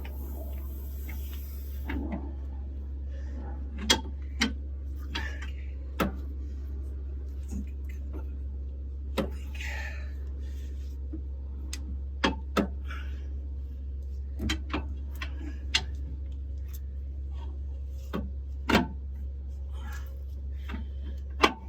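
Scattered sharp clicks and metallic knocks of hand tools and axle parts being handled and set down, about a dozen at irregular intervals, with a few short rustles, over a steady low hum.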